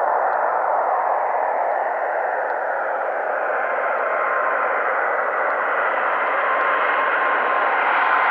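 Boeing 777 jet engines on final approach: a steady rushing roar with a faint whine, growing brighter near the end as the airliner comes closer.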